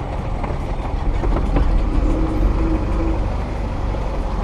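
A 1984 Lada Niva (VAZ-2121) driving on a rough track: a steady low engine and road rumble with scattered knocks and rattles.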